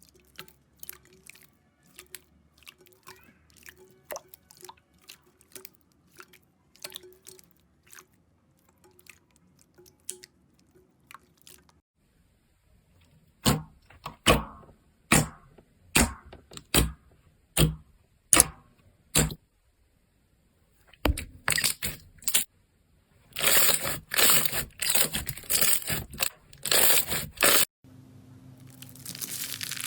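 Slime being squeezed and pressed by hand close to the microphone, giving crisp crackles and pops: faint and sparse at first, then a string of loud separate pops about halfway through, and a dense run of crackling near the end.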